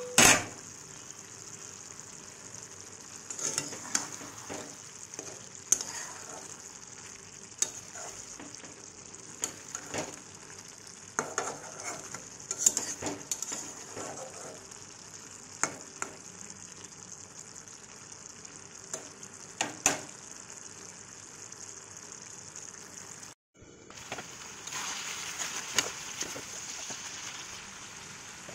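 Mushrooms and dry fish sizzling in a metal kadai while a metal spatula stirs them, with scattered knocks and scrapes of the spatula against the pan. After a short break near the end the sizzle comes back louder.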